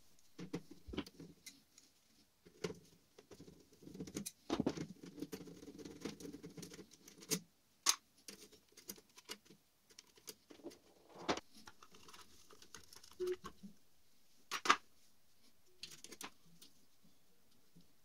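Light rustling and scattered small clicks from a gloved hand handling a refrigerator compressor's wires and connectors, with a few sharper clicks among them.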